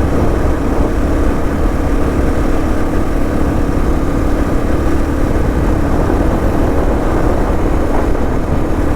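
Vehicle engine running at a steady pitch, with a constant rumble of road and wind noise from travelling.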